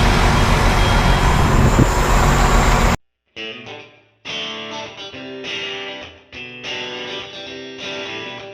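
Steady engine and machinery noise for about three seconds, cut off suddenly by background electric guitar music.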